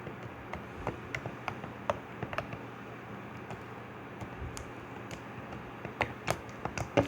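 Stiff slime being squeezed and pressed together by hand: scattered small clicks and pops, bunched in the first couple of seconds and again near the end.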